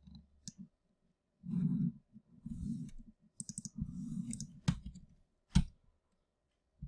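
Computer mouse clicking several times, with low rustling handling noise in between; the sharpest click comes about five and a half seconds in.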